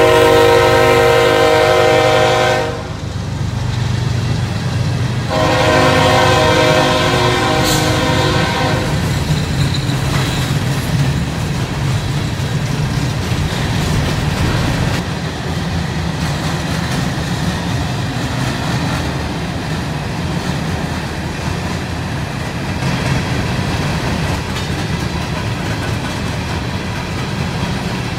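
CSX freight train's locomotive horn sounding a long chord that cuts off under three seconds in, then a second long blast from about five to nine seconds in. For the rest of the time there is the steady rumble and clickety-clack of open-top freight cars rolling past on the rails.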